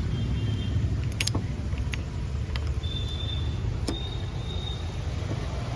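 A few sharp metallic clicks and taps of tools and brake parts being handled during a scooter brake-pad change, over a steady low background rumble, with a few faint high squeaks.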